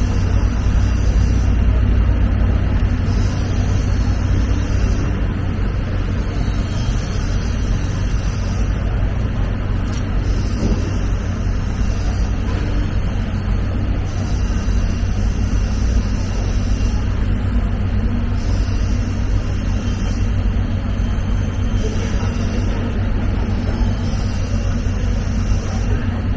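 Steady, loud low rumble with a faint hum, like machinery or an engine running.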